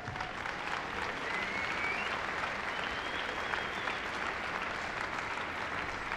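Large indoor audience applauding steadily, a dense patter of many hands clapping.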